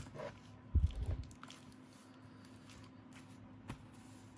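A heavy thud and knocking about a second in, then the steady hum of a computer's fans, which are loud enough to bother the speaker, with a few light clicks.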